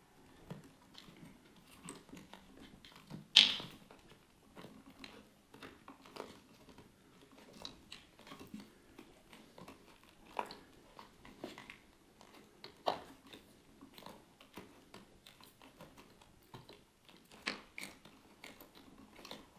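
Close handling of wiring-harness cables and plastic electrical connectors: scattered small clicks, rustles and crackles, with one sharp click about three and a half seconds in.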